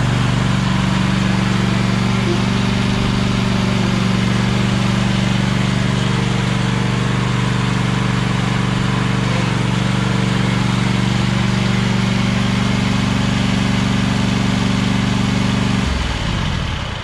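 Lawn tractor's 18 HP Tecumseh V-twin engine running at a steady speed while the tractor drives, then shut off about sixteen seconds in, winding down to a stop.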